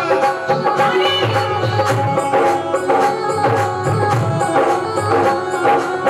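Instrumental interlude of Rajasthani folk devotional music without singing: an electronic keyboard melody over a steady hand-drum rhythm with a pulsing bass.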